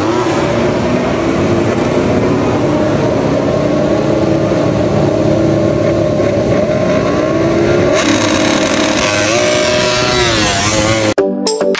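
Several MotoGP racing motorcycle engines revving loudly on the starting grid, their pitch rising and falling as the bikes pull away. The sound cuts off abruptly near the end.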